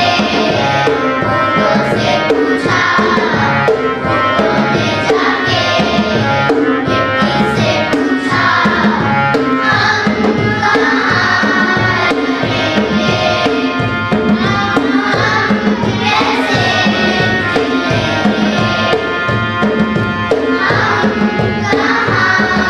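Group of children singing a song to tabla and other instrumental accompaniment, with a steady beat.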